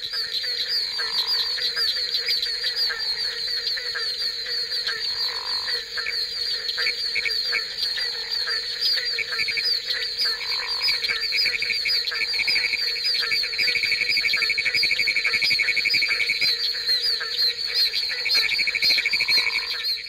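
Mixed chorus of about eleven frog and toad species calling at once, among them barking treefrogs. It is a dense, continuous din of rapid calls, with a pulsing trill that swells in the middle and lower calls repeating every second or two.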